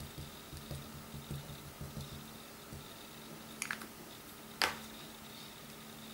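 Small ink pad dabbed repeatedly onto a clear rubber-style stamp on an acrylic block: soft pats, about three or four a second, over the first two to three seconds. Then a couple of light clicks and one sharp click about four and a half seconds in.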